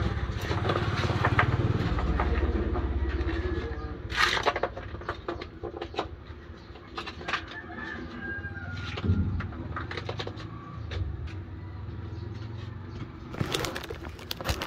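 Street ambience: a motorcycle engine running low, strongest in the first few seconds and again past the middle, with bird calls and a few sharp clicks about four seconds in.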